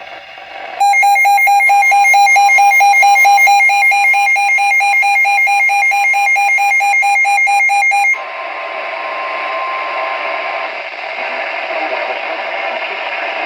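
Weather radio receiver's alert alarm: a harsh, rapidly pulsing electronic beep that starts about a second in and stops abruptly after about seven seconds, signalling a received warning. A faint steady warning tone from the broadcast runs beneath it and goes on briefly over radio static hiss before fading out.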